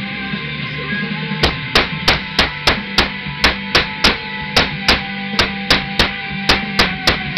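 Hammer blows on a workpiece clamped in a bench vise, a steady run of about three strikes a second starting about a second and a half in, with guitar music playing underneath.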